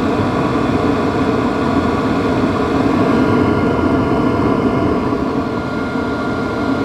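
Exhaust of a 5 kW Chinese diesel air parking heater running, heard at the outlet through a stainless exhaust muffler: a steady rushing noise with a faint high-pitched tone.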